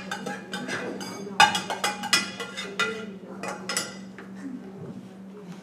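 Metal spoon scraping and clinking against a stainless steel pot as boiled soybean mash is spooned into a food processor jar. The clinks come quickly, thickest in the first few seconds, and thin out toward the end.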